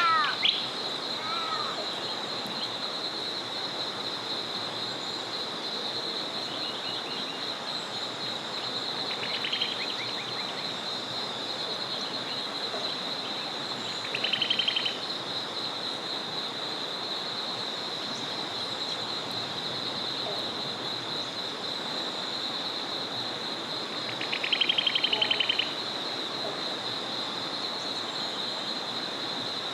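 Small forest river flowing as a steady rush under a continuous high-pitched trilling chorus. Short rapid trilled calls stand out three times: a faint one about 9 seconds in, a louder one about 14 seconds in, and the longest and loudest, over a second, about 24 seconds in.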